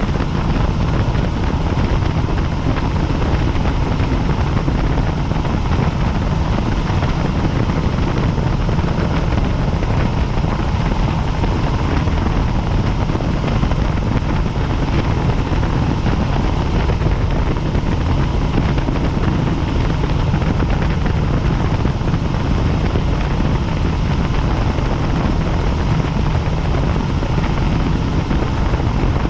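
Helicopter in flight: loud, steady rotor and engine noise, heaviest in the low end, with a faint steady whine over it.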